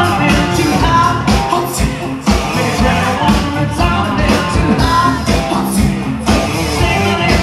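Loud rock music with a singer over a steady drum beat.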